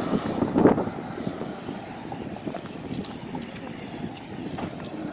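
Road traffic going by on the street, louder in the first second and then fading to a steady lower rush, with wind buffeting the microphone.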